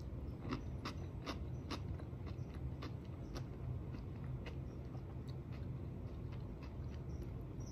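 Chewing a crunchy piece of raw cucumber close to the microphone: a run of irregular crisp crunches, several a second at times, over a steady low hum.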